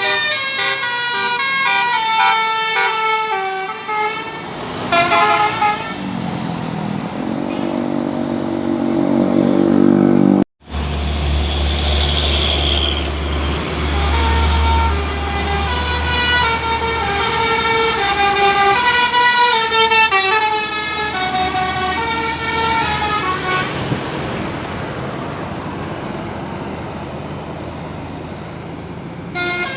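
Tour buses' 'telolet basuri' melodic multi-tone horns playing stepping tunes, one run after another, with a bus engine rumbling low for a few seconds after a brief dropout about ten seconds in.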